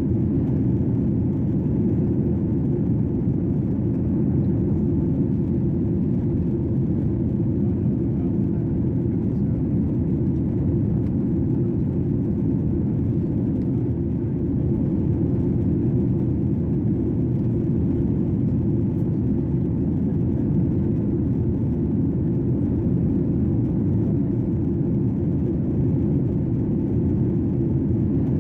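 Airplane cabin noise in flight, heard inside the cabin: a steady, low rumble with little hiss above it, unchanging throughout.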